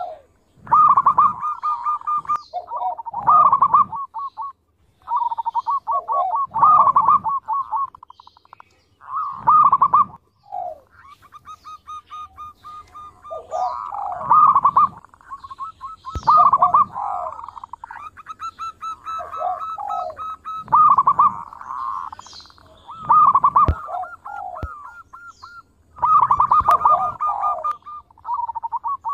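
Zebra dove (perkutut) singing its cooing song: about ten phrases of quick, staccato, repeated coo notes, each phrase lasting one to two seconds, with short pauses between them.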